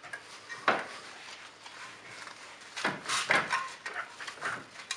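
Metal knocks and clunks of a Chevrolet Aveo's front steering knuckle being handled and worked onto the lower-arm ball joint. There is a sharp click under a second in and a cluster of knocks around three seconds in.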